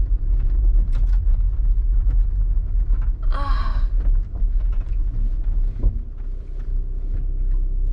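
Steady low rumble of the campervan heard from inside the cabin, with a short vocal sound about three seconds in.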